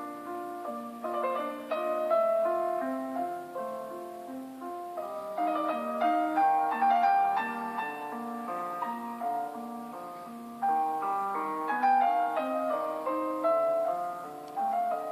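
A preloaded Samsung Galaxy Fold 4 ringtone playing: a piano-like melody over a repeating pattern of lower notes. It steps up in loudness about two-thirds of the way through.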